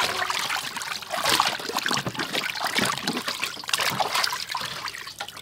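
Water splashing and dribbling in a large stainless-steel basin as several hands scrub and lift a whole raw chicken, washing it. The splashing is irregular and tapers off near the end.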